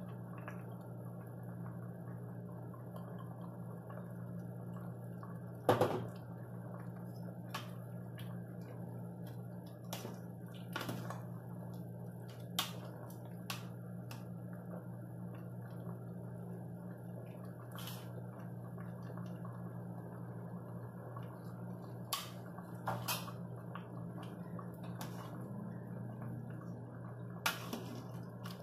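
A metal ladle and spoon clinking and scraping against an aluminium pot while soup is stirred, with liquid sloshing. The sharp clinks come now and then, the loudest about six seconds in, over a steady low hum.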